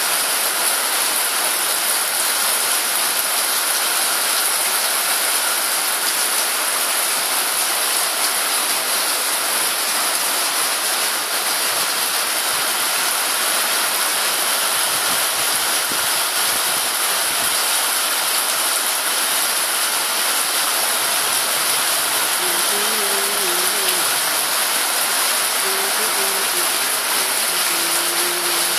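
Rain falling steadily onto paving and a road, a dense unbroken hiss. A faint wavering tone sounds over it in the last several seconds.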